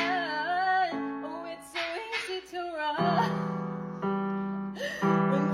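Music: a voice singing a slow song over held instrumental chords.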